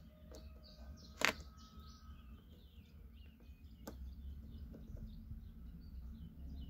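Small birds chirping on and off in the background over a low steady rumble, with a sharp click about a second in and a fainter click a little before four seconds.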